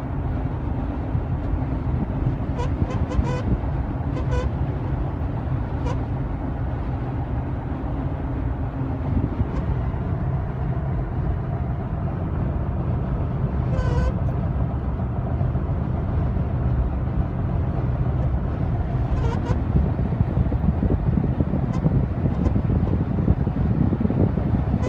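Inside the cab of a 2016 Toyota Tacoma at highway speed: steady road and wind noise, with a buzzing tone from the passenger A-pillar that comes and goes several times. The buzz is set off by a crosswind from the driver's side at speeds above 60 mph.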